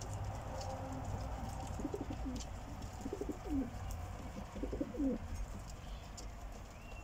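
A flock of domestic show pigeons (Polish show homers and Silesian shield pigeons) cooing, with several low falling coos between about two and five seconds in.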